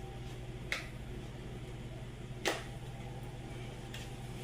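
Two sharp clicks of kitchen items being handled, the second louder, about two seconds apart, over a steady low hum.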